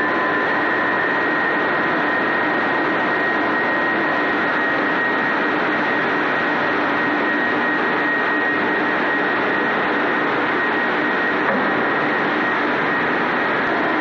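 Steady, loud industrial machinery noise on a hot steel-bar processing line: a continuous roar with a constant high whine running through it.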